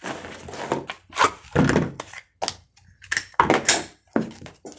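Gear being handled and moved about: an irregular run of short knocks, thumps and clicks of hard objects being picked up and set down.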